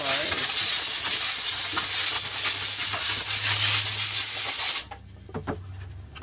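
A loud, steady hiss of a pressurised jet, cutting off suddenly about five seconds in, followed by a couple of faint knocks.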